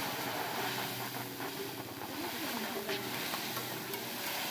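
An engine running steadily, with voices in the background.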